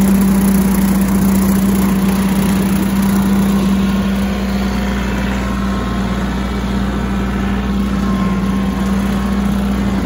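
Kioti CK4010 tractor's diesel engine working hard, driving a rear rotary cutter through tall dry grass. A loud, steady drone with a constant hum, easing slightly after about five seconds.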